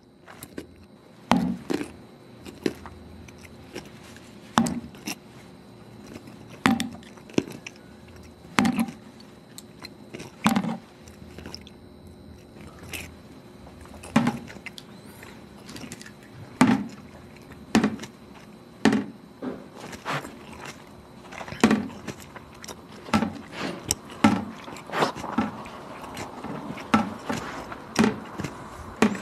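Irregular sharp knocks and clicks of objects being handled at a workbench, one every second or two and coming faster near the end, over a faint steady hum.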